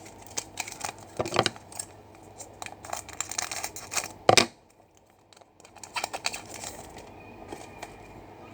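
Trading-card pack wrapper being torn open and crinkled, a run of crackles and rustles with one sharp tear about four seconds in, then more crinkling a little later.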